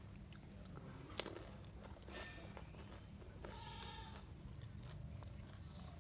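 A single sharp click about a second in, then a short bleating call from a farm animal just past the middle, over a low background hum.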